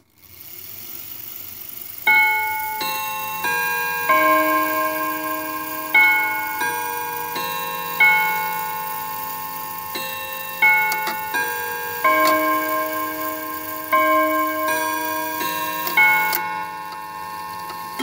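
Cathedral chime clock's hammers striking its steel chime rods, playing a tune of many different notes about two-thirds of a second apart, with a stronger stroke roughly every two seconds. Each note rings on under the next; the tune begins about two seconds in and ends near the end.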